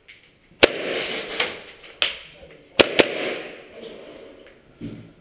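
Airsoft guns firing in a bare concrete room: a sharp crack less than a second in, another about two seconds in, and a quick pair about three seconds in, each ringing off the walls.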